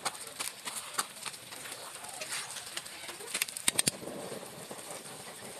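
Metal spoons scraping and clinking against a metal pan as rice in coconut milk is stirred, with a quick run of sharp clinks about three and a half seconds in.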